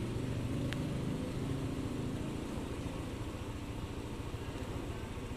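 Motorcycle engine idling steadily, a low rumble with an even rapid pulse.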